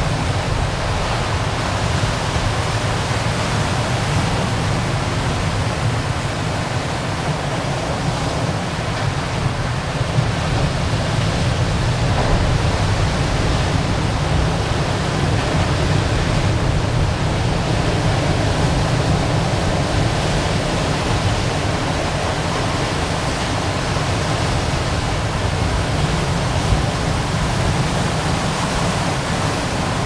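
Ocean surf breaking and washing over rocks: a steady rush of water noise, slightly louder in the middle.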